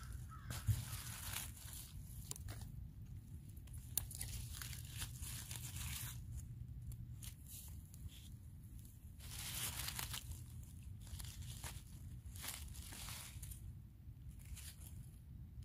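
Dry fallen leaves rustling in irregular spurts as a gloved hand picks mushrooms out of the leaf litter, with a sharp click about a second in and another about four seconds in, over a low steady rumble.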